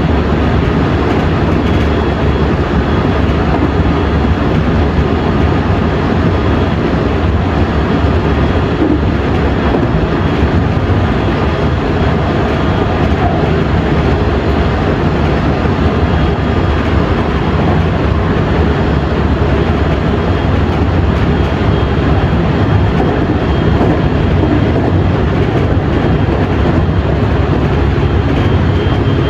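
JR West 207 series motor car (MoHa 207-504) with a Mitsubishi power-transistor VVVF inverter, running at steady speed, heard on board. A steady rumble of wheels on rail, with a faint high whine from the traction equipment that comes and goes.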